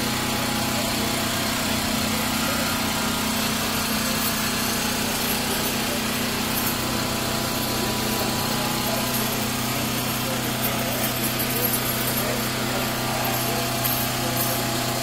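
A small motor running steadily: an even low hum under a constant hiss.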